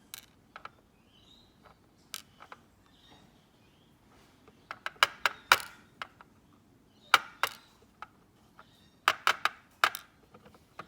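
Small sharp metal clicks and taps from handling a disassembled Mako padlock's core and key. A few single clicks come first, then clusters of clicks about five seconds in, about seven seconds in, and around nine to ten seconds in.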